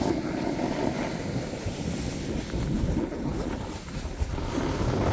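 Wind rushing and buffeting over a phone's microphone while skiing downhill, a steady low rumbling noise.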